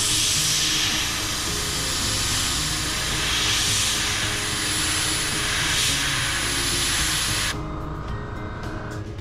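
Airbrush spraying paint in a steady hiss that cuts off suddenly near the end, over background music.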